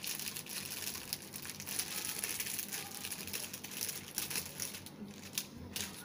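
Plastic packaging of an IV infusion set crinkling as it is handled and opened, with a few sharper crackles near the end.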